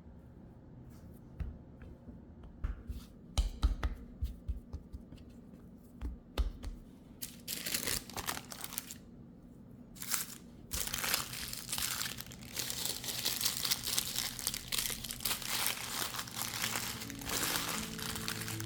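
Crinkly wrapping being handled on a kitchen worktop: a few light knocks and taps, then long bursts of crinkling and rustling from about seven seconds in.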